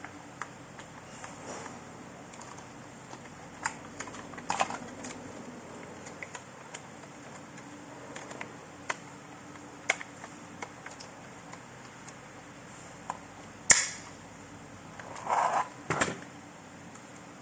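Scattered small plastic clicks and handling noises from parts of a robot vacuum being worked by hand, with one sharp click about 14 seconds in and a short rustle just after.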